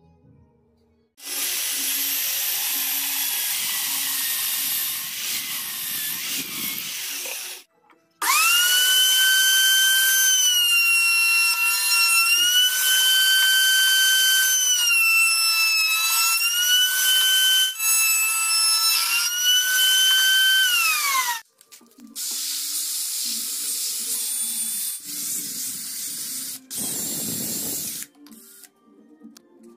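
Power tools running in turn on wood. The longest and loudest is a router in a router table: a steady high whine that dips in pitch a few times as the board is fed past the bit, then winds down with falling pitch. After it, a cordless drill spins a sanding drum against wood for several seconds.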